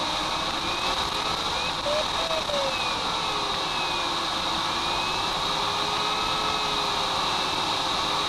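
Steady rush of air past a glider's canopy in flight, with a faint variometer tone sliding slowly up and down in pitch.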